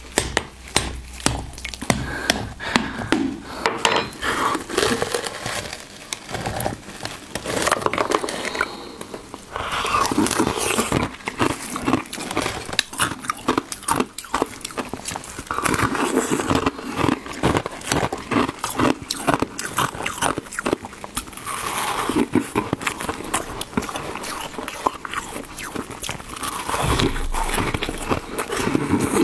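A hollow dome of balloon-frozen ice being cracked open by hand and its frosty inner ice picked apart and bitten: dense, irregular crackling and snapping of ice.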